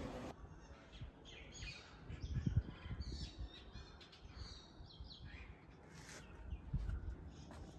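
Small birds chirping in quick, short calls, with a couple of low thumps about two and a half seconds in and near the end.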